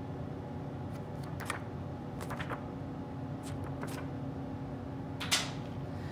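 Brief rustles and clicks of a paper flyer and a plastic DVD case being handled, the sharpest about five seconds in, over a steady low hum.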